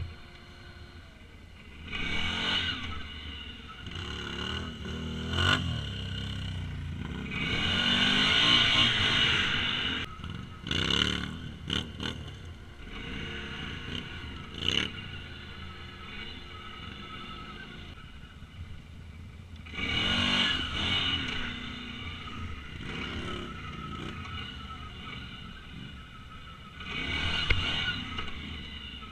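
Can-Am ATV's V-twin engine revved in hard throttle bursts for wheelies: four longer surges, with short sharp blips and knocks between them.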